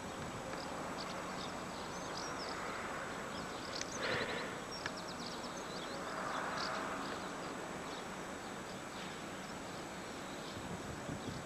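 Small birds chirping in short bursts over a faint steady hum from a distant diesel train.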